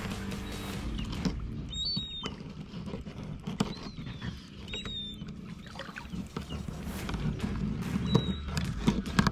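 A filleting knife slicing and scraping along a fish's rib bones, with small clicks and scrapes of the blade on the bones and the board. A bird chirps briefly a few times.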